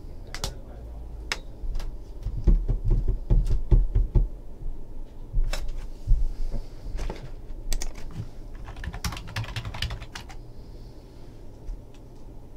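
Irregular clicks and taps of typing on a computer keyboard, with a few low knocks in the first few seconds.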